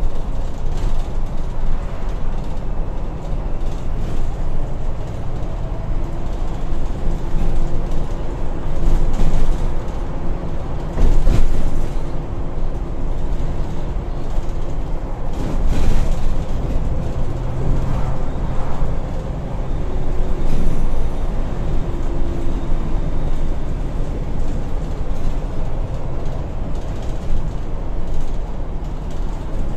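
Inside a moving Volvo B8RLE single-deck bus: steady road and tyre noise with the 7.7-litre six-cylinder diesel pulling, its note changing pitch now and then. There are occasional knocks and rattles from the bodywork, the loudest about eleven and sixteen seconds in.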